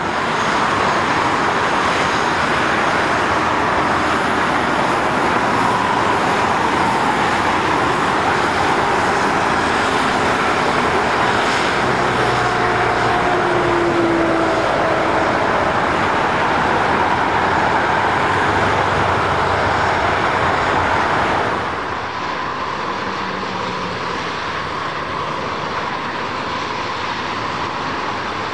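Boeing 737 airliner's turbofan engines running with a loud, steady roar as the jet moves along the airfield. About three-quarters of the way through, the sound drops suddenly to a quieter steady engine noise.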